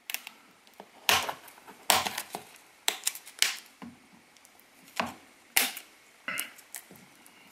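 Fingernails picking and scraping at the sealed end of a small cardboard box, a string of irregular sharp clicks and scratches with short pauses between them.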